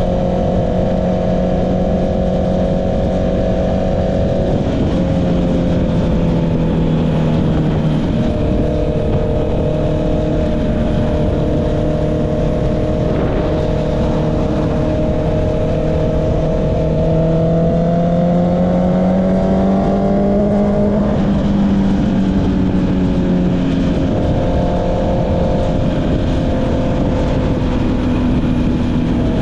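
Honda CB650R's inline-four engine running through an Akrapovic exhaust while riding. The engine note holds fairly steady, dips about five seconds in, climbs slowly as the bike accelerates and falls sharply about two-thirds of the way through as it shifts up.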